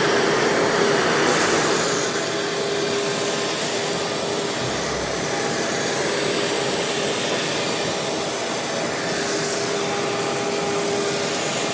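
CNC router carving pink foam board: a 3 hp water-cooled spindle turning a quarter-inch zero-flute bit at 12,000 rpm, under the steady rush of dust-collection suction through the hose at the spindle. A steady hum drops out and returns a few times as the cut goes on.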